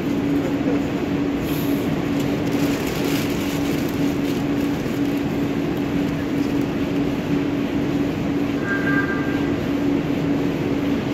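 Steady machinery drone with a constant low hum running underneath. A brief, faint higher tone sounds about eight and a half seconds in.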